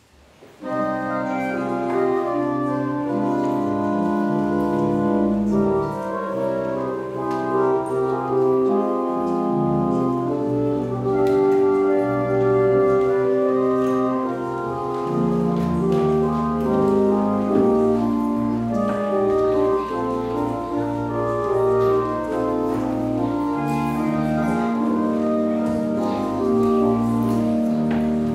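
Organ music: slow, sustained chords in several voices, starting about half a second in.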